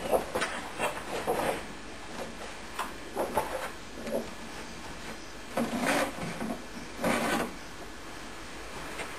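Vertical poster cabinet on wheels being handled: a series of irregular scrapes and knocks, with two longer, louder scrapes about six and seven seconds in.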